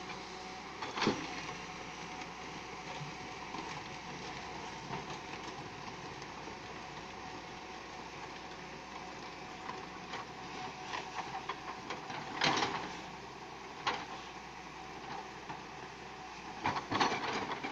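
Tata Hitachi 210 crawler excavator's diesel engine running steadily, with several sharp knocks of rock as it works over the stones: one about a second in, two in the second half, and a cluster near the end.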